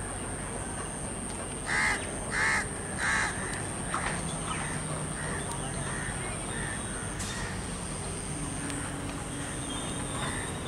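A crow caws three times in quick succession about two seconds in, followed by fainter repeated calls, over the low steady rumble of a 12-car electric multiple unit local train rolling slowly into the platform.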